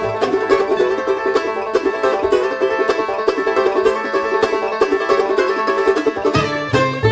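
Background music: fast banjo picking with other plucked strings, in a bluegrass style, with a deeper bass part coming in near the end.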